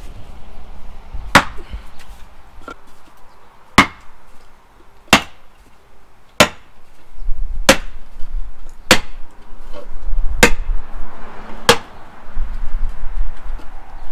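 About eight hammer blows, evenly paced a little over a second apart, knocking a piston out of a Detroit Diesel 6-71 engine.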